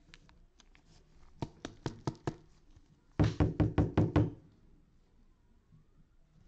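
Clear rigid plastic toploader with a trading card inside, knocked against the tabletop to settle the card: a few lighter taps, then about a second and a half later a quick run of about seven louder knocks.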